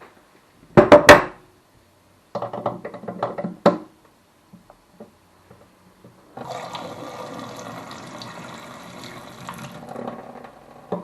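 A few loud knocks about a second in and some clattering, then water rushing steadily from the hot water tap for about three and a half seconds, starting a little past the middle, as the freshly replaced tap valve is tested.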